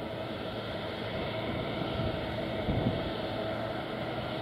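Boeing 777's twin turbofan engines running at low thrust as it taxis: a steady jet whine over a low rumble.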